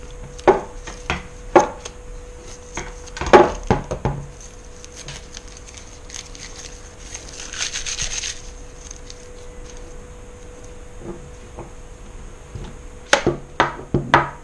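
Plastic gel blaster M4 knocking and clacking against a wooden tabletop as masking tape is stripped off it and the rifle is handled. The sharpest knock comes a few seconds in, with another cluster near the end as it is picked up. About halfway through there is a brief rustle of tape pulling away.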